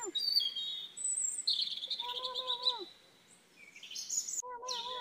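Kittens meowing: a drawn-out meow about two seconds in and another near the end, with birds chirping and trilling high above.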